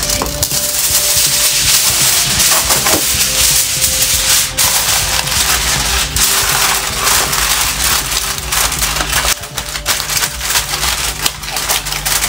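Aluminum foil crinkling and crackling as it is pulled from its box, torn off, and crumpled and pressed around the rim of a round dish.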